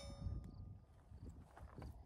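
A struck steel target ringing on after the last .22 LR hit and dying away within the first second. Then a few faint clicks and scuffs against low wind rumble.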